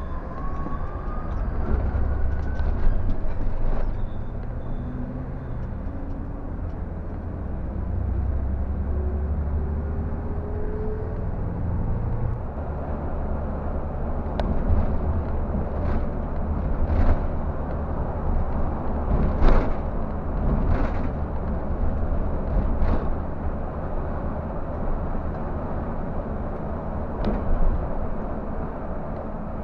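Scania coach's diesel engine heard from inside the driver's cab, rising in pitch as the coach accelerates over the first dozen seconds, then running steadily at speed under a low road rumble. Several sharp knocks come through about halfway through.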